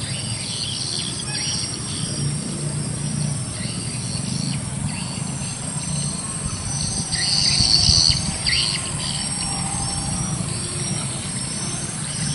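Outdoor ambience: a steady low rumble with scattered high chirps, the chirping loudest a little past halfway.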